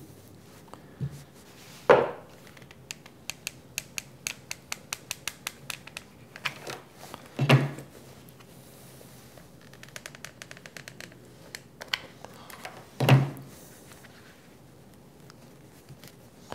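Hands working a quilted faux-leather dust cover with a steel 1-2-3 block on a tabletop: three dull thumps spread through, with a run of small light clicks between the first two and softer ticking and rustling later.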